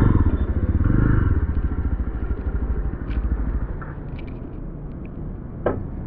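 Yezdi Roadster's single-cylinder engine running at low speed with a steady low pulse. It is louder for the first couple of seconds, then eases off and settles to a quieter idle about four seconds in. A single short knock comes near the end.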